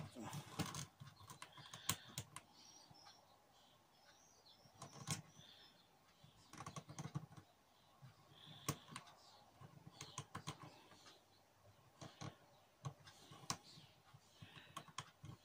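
Faint, scattered clicks and taps of a plastic action figure being posed: its joints being bent and its feet set down on a wooden desk.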